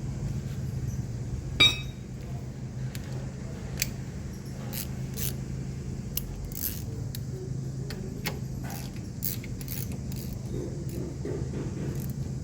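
Metal tools and parts clinking and clicking as they are handled, with one sharp loud click about a second and a half in, over a steady low hum.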